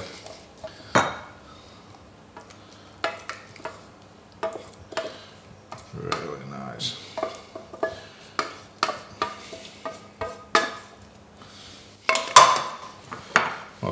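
A spoon scraping and knocking against the inside of a stainless steel saucepan as risotto is spooned out into a bowl: a run of irregular sharp metal clicks and taps. Near the end there is a louder clunk, the pan being set down on the stone counter.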